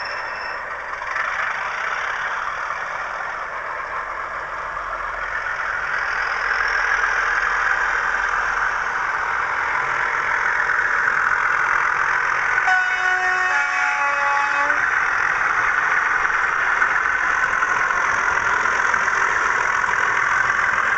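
Two model Class 37 diesel locomotives' DCC sound decoders playing the English Electric engine working hard under power through their small onboard speakers, growing louder about six seconds in. About thirteen seconds in, a two-tone horn sounds briefly.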